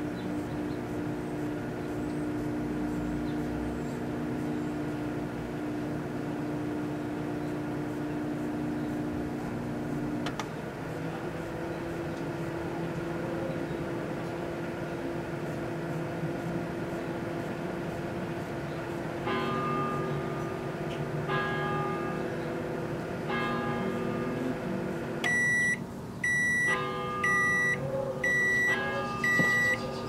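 Danby microwave oven running with a steady hum that shifts slightly in pitch about a third of the way in. Near the end the countdown runs out and the oven gives a series of loud, evenly spaced high beeps to signal the end of the cycle, with no bang from the aerosol can inside.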